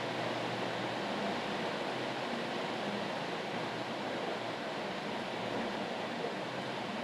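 Steady, unbroken hiss of rain white noise, even throughout with no deep rumble and no separate drops or pattering standing out.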